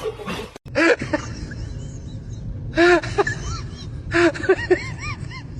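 A pet's short cries, each rising and falling in pitch: one about a second in, another about three seconds in, and a quick run of them near the end.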